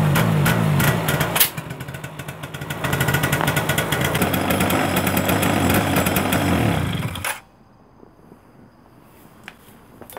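Minarelli horizontal 50cc two-stroke scooter engine running on test. Its note dips, rises again about three seconds in, then falls and the engine stops suddenly about seven seconds in. It cuts out whenever it is given throttle, which the owner thinks is because it was set up for a sports exhaust and is running the standard exhaust.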